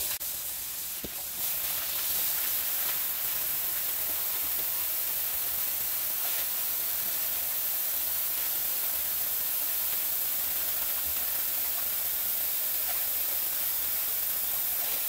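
Kitchen faucet running steadily, its stream of water splashing onto the bottom of an empty stainless steel sink basin.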